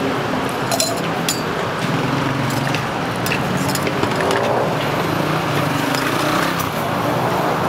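Steady street traffic noise from passing cars and motorbikes, with an engine rising in pitch about halfway through. Several sharp taps of a chef's knife against a wooden cutting board come through on top as bananas are sliced.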